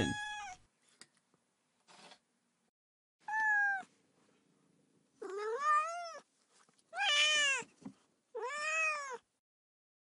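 A cat meowing four times, each meow under a second long and rising then falling in pitch.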